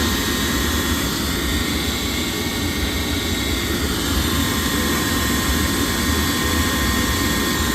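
Gas furnace running on a test fire: a steady rush of the draft inducer fan and burner, with a faint steady whine over it.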